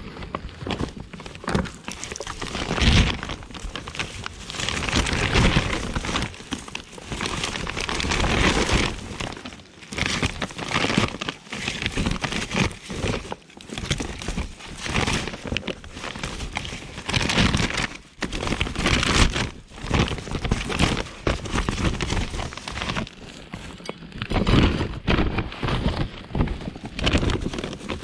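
Rummaging through debris in a skip by hand: irregular rustling, crinkling and knocking as items are shifted and put back.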